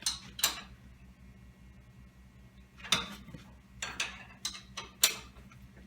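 Metal hand tools clinking and clanking against metal: a handful of sharp, uneven knocks, the loudest about three and five seconds in.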